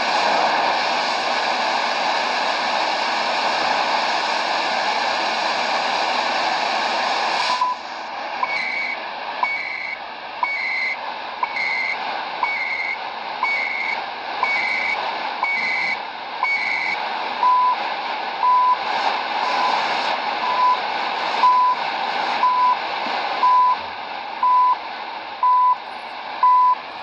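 Shortwave radio receiver in AM: hissing static while tuning. About eight seconds in, the CHU Canada time signal on 3330 kHz comes in, beeping once a second. At first each beep is a short tick paired with a burst of higher data tone, the station's digital time code. Then the beeps become longer.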